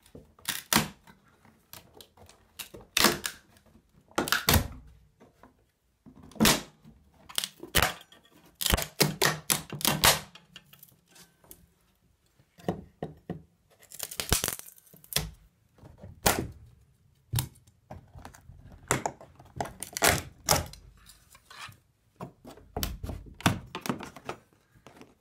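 Wooden door casing being pried and pulled off the door jamb: an irregular run of sharp cracks, snaps and knocks, with one longer scraping stretch about halfway through.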